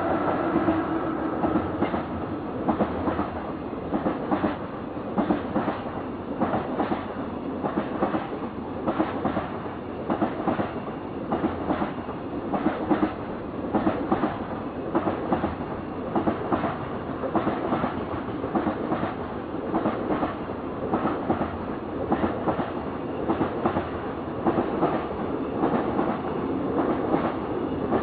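Container freight train hauled by an EF66 electric locomotive running past at speed, its wagons' wheels clacking over the rail joints in a steady repeating rhythm.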